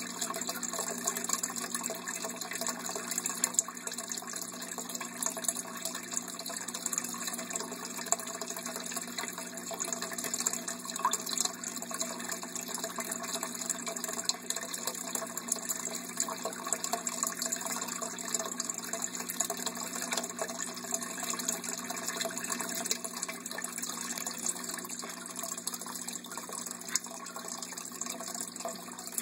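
Aquarium water bubbling and churning steadily, with a fine crackle of bubbles breaking at the surface.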